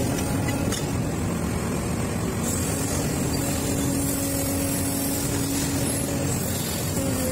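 Hydraulic excavator's diesel engine running under working load, a steady drone heard from the operator's cab. A steady tone grows stronger about three seconds in, as the arm works to pull out a palm stump.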